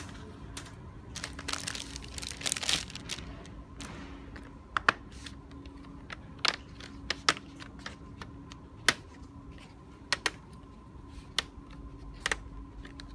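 Plastic laptop screen bezel being pried off by hand: a series of sharp clicks as its clips snap loose, with a stretch of plastic crackling about two seconds in.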